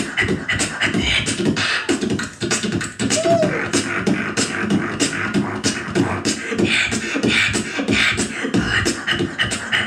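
Beatboxer's vocal percussion: a fast, steady rhythm of mouth-made kick, snare and hi-hat sounds, breaking off right at the end.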